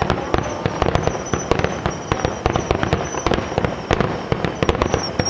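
Fireworks display: a dense, continuous run of sharp bangs and crackles, many bursts a second.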